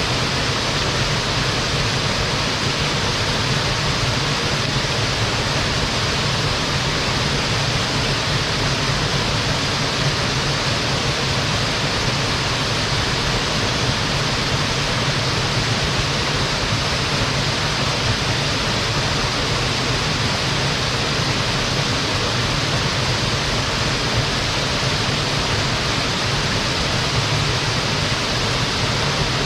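Waterfall: water falling and splashing onto rock and pool in a steady, unbroken rush.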